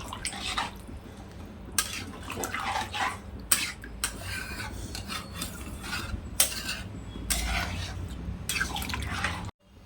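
A spoon stirring a watery curry in a cooking pan, scraping and clinking against the pot several times as the liquid sloshes.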